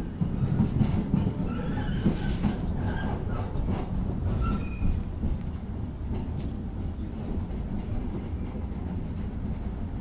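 MBTA Green Line light rail train heard from inside the car, a steady low rumble of wheels on track, with a few brief high wheel squeals about two to five seconds in.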